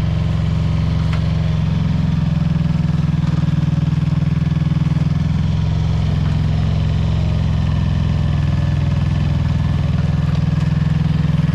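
Engine of a powered soil-sampling machine running steadily while it works a sample hole, with a slight shift in its tone about five seconds in.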